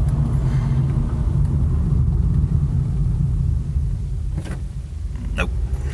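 2010 Honda Civic driving, a steady low rumble of engine and tyres that grows a little quieter about four seconds in, with two short knocks near the end. No brake squeal is heard on this test stop.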